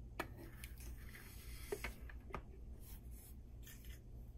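A handful of light clicks and taps from 3D-printed plastic parts being handled on a tabletop, most in the first couple of seconds, over a low steady hum.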